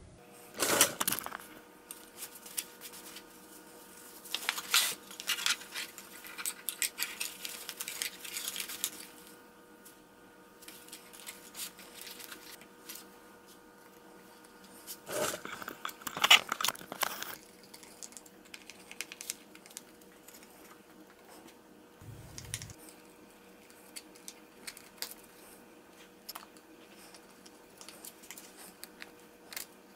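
Rustling and crinkling of velvet fabric and plastic film being handled, in loud bursts. Scattered small clicks and taps of wood and hardware follow as small hinge screws are driven by hand.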